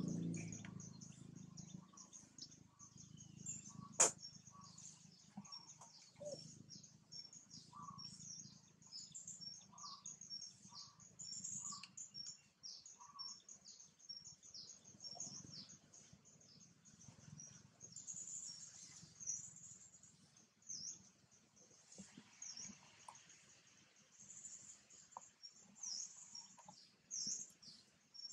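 Birds chirping in the background, a steady run of short, high, falling chirps, with a lower note repeating every second or so through the first half. A single sharp click about four seconds in.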